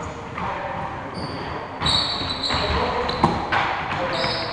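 Basketball game play on an indoor court: sneakers squeaking in short high chirps and the ball bouncing, with one sharp knock about three seconds in.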